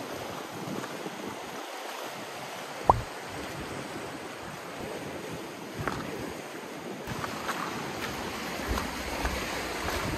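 Sea waves washing on the shore, with wind buffeting the microphone; a single sharp click about three seconds in.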